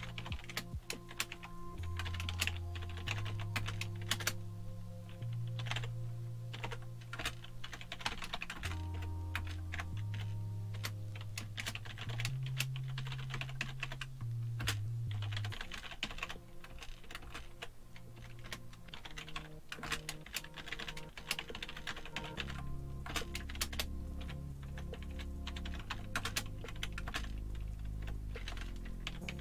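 Computer keyboard typing in quick, irregular runs of keystrokes, over background music with a low bass line that changes note every second or two.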